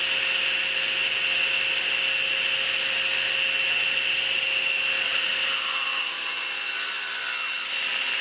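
Table saw running with its blade spinning, a steady whine; about two-thirds of the way through the blade starts cutting a 45-degree miter across the end of a board pushed through on a miter gauge, and the sound turns rougher and higher.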